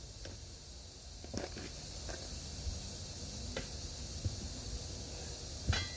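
A tire iron clinking and knocking a few times against a 19.5-inch steel truck wheel as the tire is levered off the rim by hand, the loudest knock near the end. A steady high hiss runs underneath.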